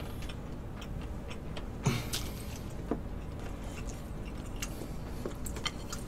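Eating sounds: scattered small clicks and smacks of chewing and of chopsticks against bowls, with a short low vocal grunt about two seconds in.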